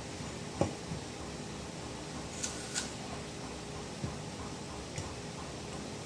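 Apple being bitten and chewed: a handful of short, crisp crunches and clicks, scattered a second or so apart, over a steady background hum.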